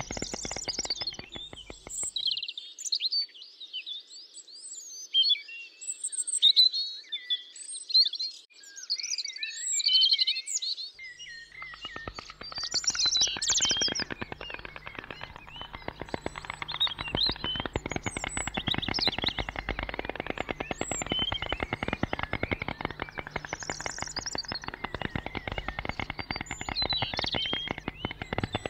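Small birds chirping and twittering. Beneath them is a dense, rapid rattle of clicks with a low hum, which stops about two seconds in and comes back near the middle, continuing to the end.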